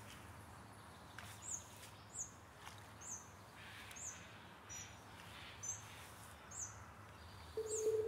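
A small bird giving faint, short, high chirps, about one a second, each sliding down in pitch, over faint outdoor background noise. A steady low tone comes in just before the end.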